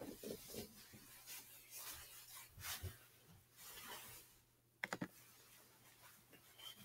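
Near-silent room tone with faint scattered rustling and a quick cluster of sharp clicks about five seconds in, over a low steady hum.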